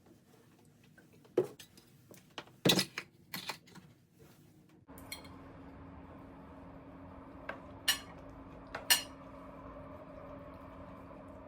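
Dishes and cutlery clinking and knocking in a few quick strikes. About five seconds in, a steady humming appliance noise starts suddenly and runs on, with two more clinks over it.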